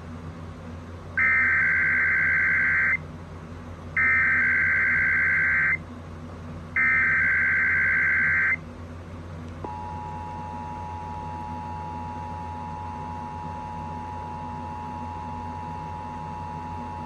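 Emergency Alert System test tones over the radio: three SAME header data bursts, each a harsh warbling digital screech lasting under two seconds, spaced about three seconds apart. From about ten seconds in comes the steady two-tone EAS attention signal.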